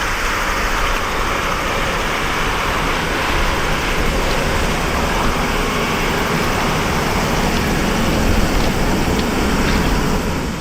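Steady jet-engine noise from an Airbus A330-300's Rolls-Royce Trent 700 turbofans at takeoff power, heard as a loud, even roar with a low rumble. It swells a little near the end.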